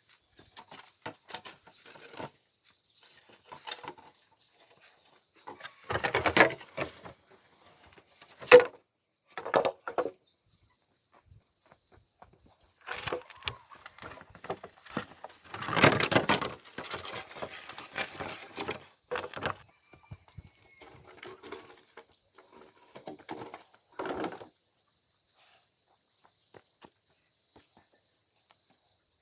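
Irregular knocks, clatter and scraping of timber being handled and fitted, with one sharp knock about eight seconds in and a longer spell of busy work in the middle, over a faint steady insect hum. It falls almost quiet for the last few seconds.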